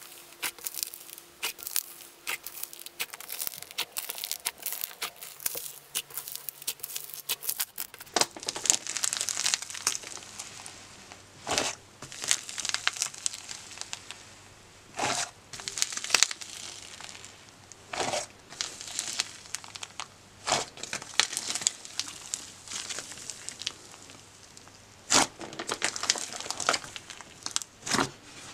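Foam-bead slime being squeezed and pressed by hand: the foam balls crackle and crunch in a dense run of small irregular clicks, with louder sharp pops every few seconds.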